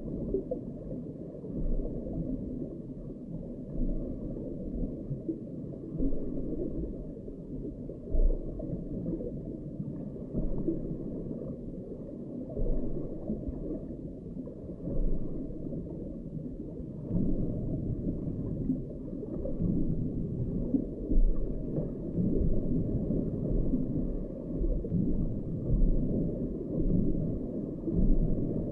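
Muffled low rumble of lake water picked up by an underwater camera's microphone, swelling and easing every second or two.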